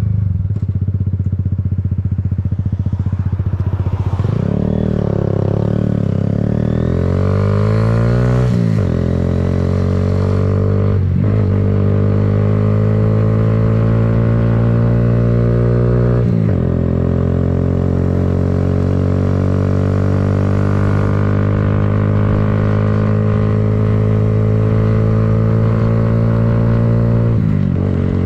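Kawasaki Z125's single-cylinder engine holding low revs, then accelerating through the gears, with shifts about 8½, 11 and 16½ seconds in. It then runs steadily at cruising revs, and the revs fall away near the end.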